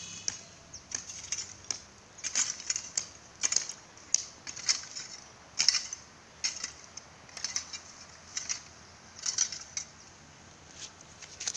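Dry straw mulch and crumbly soil rustling and crunching in short, irregular crisp bursts, about one or two a second.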